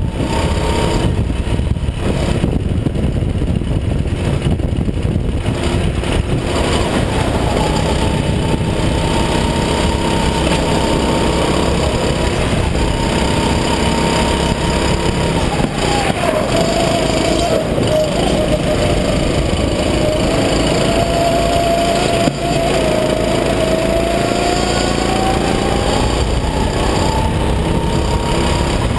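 Rental go-kart's small single-cylinder four-stroke engine running hard from the driver's seat. Its whine holds steady, sags lower for several seconds past halfway as the kart slows for a turn, and climbs back near the end.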